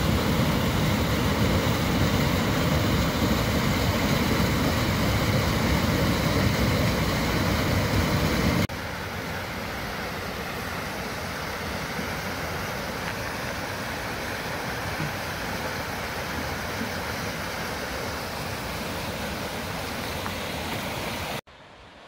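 Small waterfall pouring into a rock pool: a loud, steady rush of water. About nine seconds in it cuts to the quieter, steady rushing of a fast stream over rocks, and near the end the sound drops off sharply to a faint background.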